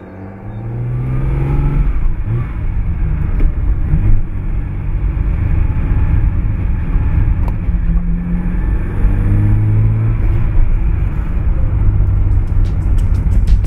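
Ferrari 365 GTB/4 Daytona's V12 engine accelerating under load, its pitch climbing in two long sweeps with a drop between them at a gear change. Near the end a steady drum beat comes in.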